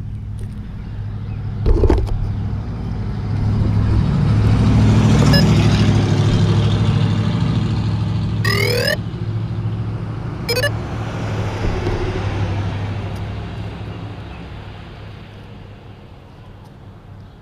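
Motor vehicle engine running on a test after a rebuild, a steady low hum that grows louder over the first few seconds and then slowly fades away. There is a sharp knock about two seconds in and a few short, fast, high chirps around the middle.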